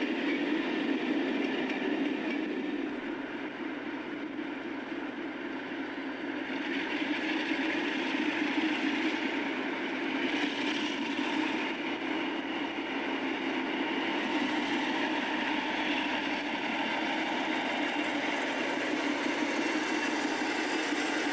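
Train running, a steady continuous rail noise with no breaks. It dips slightly a few seconds in and swells again around eight seconds.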